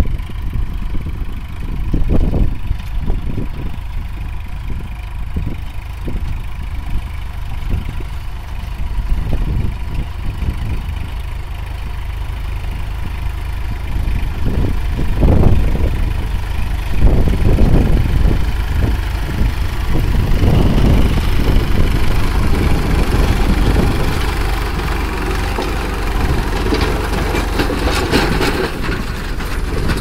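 Massey Ferguson 9000 tractor's diesel engine working under load while pulling a tillage implement through hard, dry soil, growing louder as the tractor comes close and passes about halfway through.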